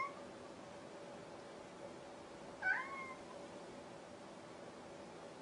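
Grey domestic cat meowing twice: a short call right at the start and a louder, longer meow about two and a half seconds in that rises and then holds its pitch. The meow is taken for the cat saying 「ごはん」 (gohan, Japanese for 'food').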